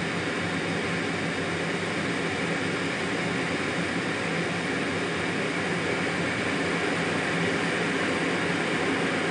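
Steady jet engine and rushing airflow heard from inside the cockpit of a jet aircraft in flight.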